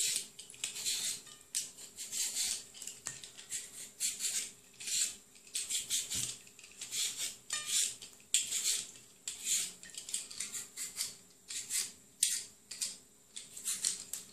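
Hand-held vegetable peeler scraping the skin off a raw potato in short, repeated strokes, about one or two a second.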